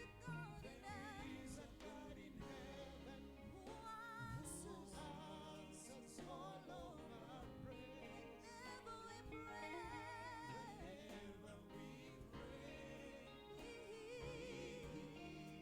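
A gospel worship song: sung voice with vibrato over continuous instrumental accompaniment.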